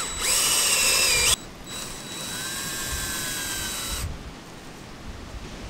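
Cordless drill driving a screw-in tent peg into sand. It runs in two goes: a louder run of about a second and a half that cuts off suddenly, then a quieter run of about two seconds.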